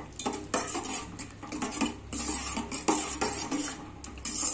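Steel spoon stirring poha payasam in a stainless-steel pot, scraping and clinking against the pot in irregular strokes as the jaggery syrup is mixed into the cooked poha and milk.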